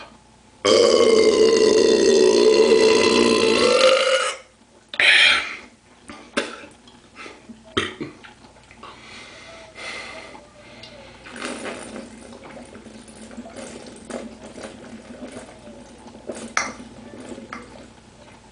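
A long, loud belch lasting about three and a half seconds, followed about a second later by a short second belch. After that, only quiet small clicks and handling noise.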